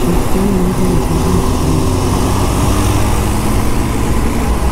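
Motorcycle engine running steadily at road speed under heavy wind noise on a microphone that has lost its foam windscreen.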